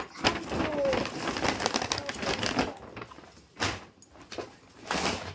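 Gift packaging rustling and crinkling as it is handled, with a faint voice now and then.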